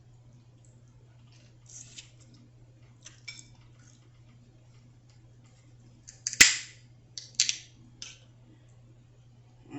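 Crab shell being cracked apart: a few faint crackles, then one sharp, loud crack about six seconds in, followed by several smaller cracks.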